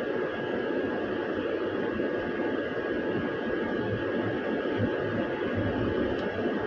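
Steady cabin hum and hiss of a trolleybus standing in traffic, its onboard equipment running, with a thin steady high whine and a few low hum pulses in the second half.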